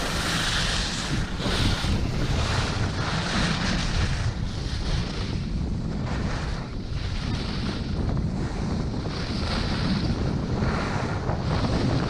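Wind rushing over the microphone of a camera carried down a ski slope at speed, with the hiss of skis carving on groomed snow swelling and fading about once a second as the skier turns.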